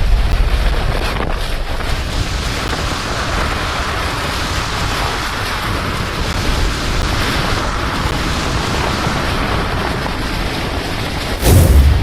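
Edited action sound effect: a steady rushing, wind-like noise, cut by a sudden loud hit about half a second before the end.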